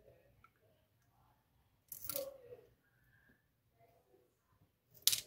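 Small lock pins and parts being handled while a pin-tumbler lock is disassembled: a short scratchy rustle about two seconds in and a sharp click near the end, quiet in between.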